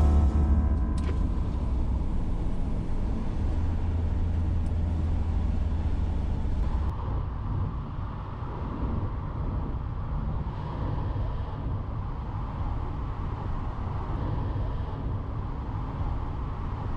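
Small camper van driving on a road: a steady low rumble of engine and tyre noise, a little quieter after about seven seconds.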